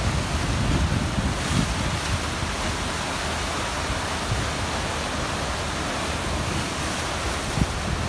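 Sea waves washing and breaking over shoreline rocks, a steady rushing hiss, with wind buffeting the microphone in the first couple of seconds.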